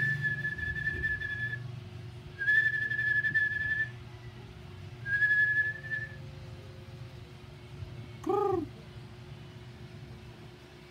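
A person whistling three long, steady, high notes, each held for a second or more, in the first six seconds. A short rising-and-falling call follows about eight seconds in.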